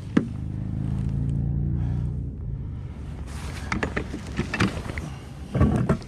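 A motor's steady low hum that fades away after about two and a half seconds, followed by scattered knocks and clicks.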